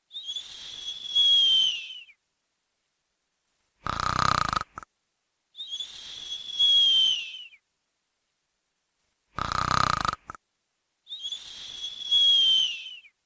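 Snoring in a repeating cycle: a short rasping snore on the in-breath, then a long whistle on the out-breath that slides down in pitch at its end. The pair comes about every five and a half seconds, three whistles and two snores.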